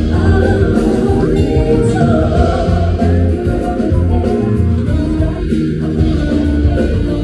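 Music with singing and a strong bass line.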